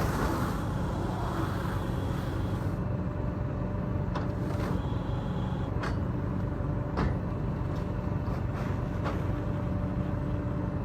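Silage baling machine running with a steady low drone, and sharp clacks from its mechanism several times during the second half.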